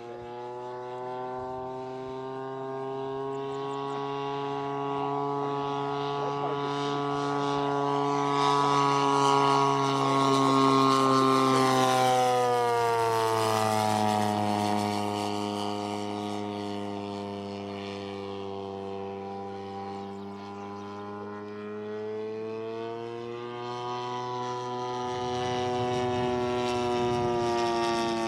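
Large-scale RC Hawker Sea Fury model's engine running in flight. The drone grows louder as the plane approaches, drops in pitch as it passes about twelve seconds in, and fades. Near the end it rises in pitch and grows louder again as the plane comes back around.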